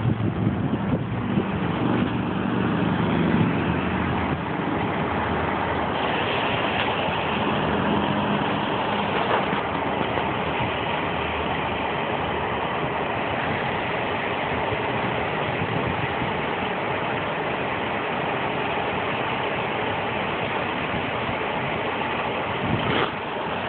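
Homemade model hovercraft's electric fan running steadily, a continuous whirring drone with a faint steady whine in it.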